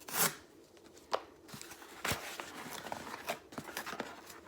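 An Apple Watch box being opened by hand: a short sharp tearing sound at the start, then scattered clicks, scrapes and rustles as the packaging is handled.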